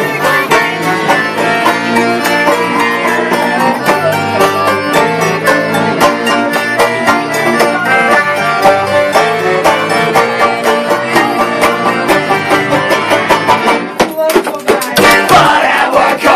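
Live band playing a fast song with an accordion. The music has many sharp beats and drops out briefly about fourteen seconds in.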